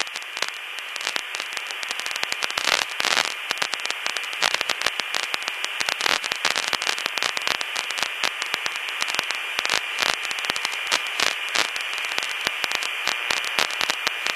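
Open cockpit intercom line with no one talking: steady static hiss broken by many irregular crackling clicks, with a faint steady high whistle underneath.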